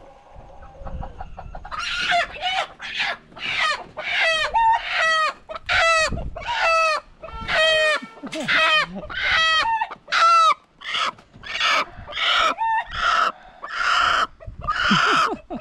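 A chicken squawking loudly over and over, about two harsh calls a second, starting about two seconds in: the alarm calls of a bird taken off its roost and handled.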